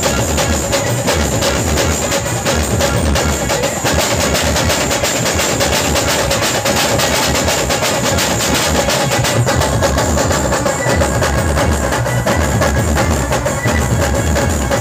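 A live band playing loud, amplified music, driven by fast, dense drumming with deep bass-drum beats that drop out for a few seconds and then return.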